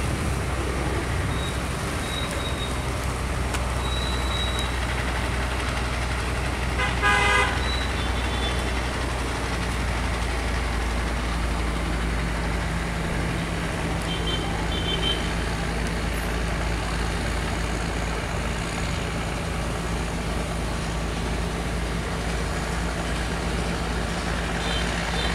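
Steady low drone of a tugboat's diesel engine pushing a loaded barge, with one short horn toot about seven seconds in.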